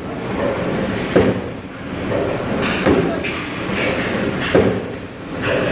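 Cheese scalding machine running: a steady mechanical churning with a knock three times, about every second and a half.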